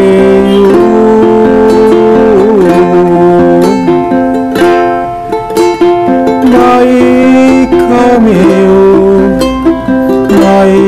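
Ukulele played in an instrumental passage of a song, with a sustained melody line above it that slides from note to note.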